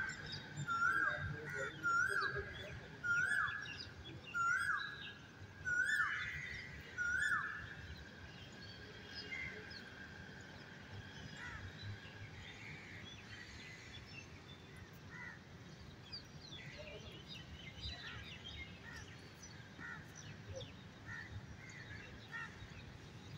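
A bird calling over and over, a loud call that rises and then drops, about once a second and seven times in all, stopping about seven seconds in. After that there are only faint scattered chirps of other birds over a steady low background rumble.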